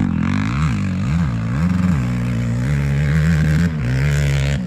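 Quad (ATV) engine revving hard on a dirt track. The pitch rises and falls several times in quick succession as the throttle is worked, then holds steadier and higher.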